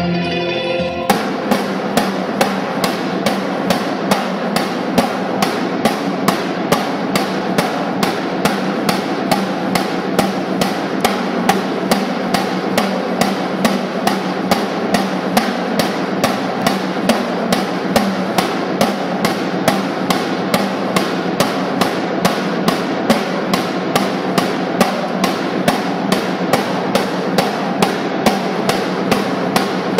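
Snare drum played with sticks: dense rapid drumming with sharp accented strokes about twice a second. It starts about a second in, where electric guitar music cuts off.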